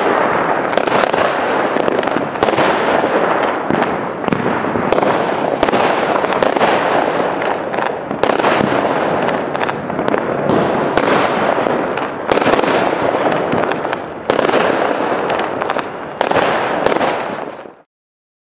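Fireworks going off in quick succession: loud bangs about once a second over continuous crackling and rumble, stopping abruptly near the end.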